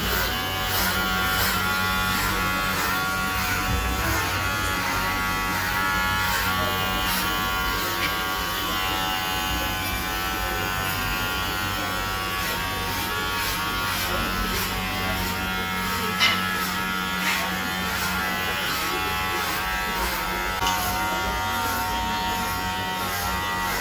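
Electric hair clippers running with a steady buzz while shaving a head for a buzz cut.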